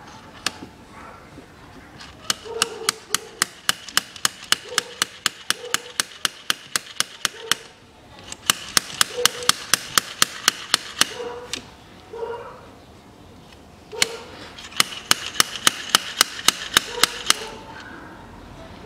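Slide-hammer diesel injector puller, its sliding weight hammering against its stop again and again to pull an injector out of a 2.2 turbodiesel. Sharp metallic clacks come about four to five a second, in three runs with short pauses between them.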